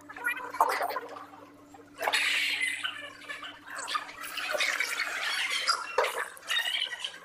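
Garbled, choppy audio from a Zoom video call of a courtroom, with voices broken up into squawks and warbles, over a steady low hum. The bursts come irregularly, with a short drop-out about halfway through the first two seconds.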